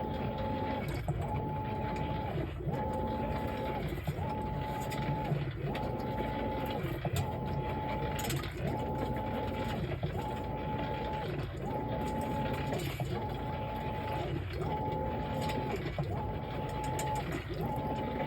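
Whirlpool Cabrio top-load washer running a wash cycle, its drive motor whining in even strokes about every second and a half, with a rattle whose cause is unknown.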